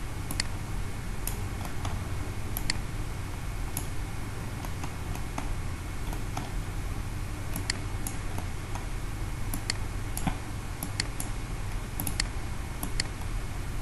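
Computer mouse clicking repeatedly at irregular intervals, sharp single clicks, over a steady low hum of microphone noise.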